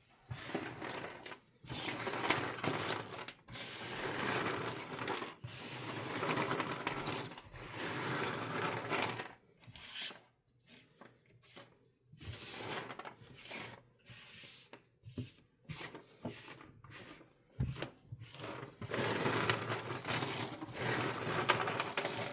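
Cardboard jigsaw puzzle pieces rattling and clattering against one another, in bursts with short pauses between.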